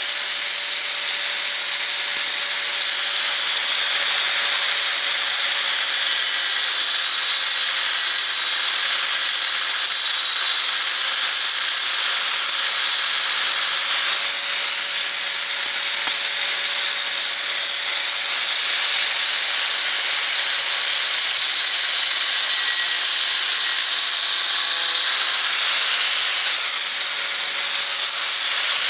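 Ozito angle grinder with a diamond blade cutting into a clay brick: a steady high-pitched whine over a gritty grinding noise.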